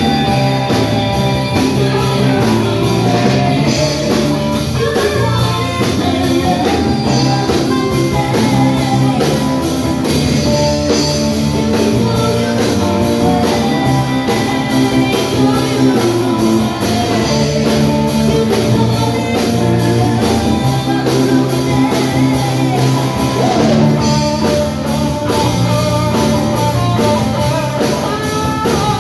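A rock band playing live, with guitar over a steady drum beat.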